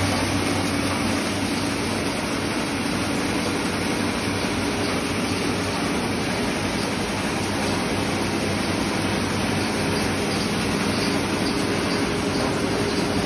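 Heavy-duty wheat cleaning and grinding machine running steadily, a continuous even mechanical drone with a low hum under it.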